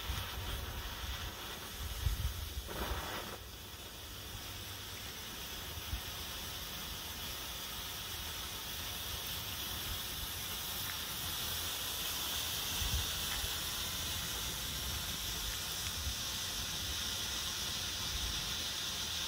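Handheld gold bengal stadium flare burning with a steady hiss. It catches with a rougher spluttering in the first few seconds, then settles into an even hiss that grows gradually louder.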